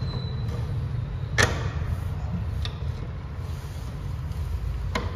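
Hand tools clicking against a motorcycle exhaust while it is being fitted and tightened: one sharp click about a second and a half in and two fainter ones later, over a steady low rumble.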